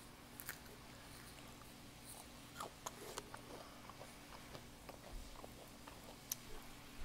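A child chewing bites of a Rice Krispie treat: faint, scattered crisp crackles and small mouth clicks, over a low steady hum.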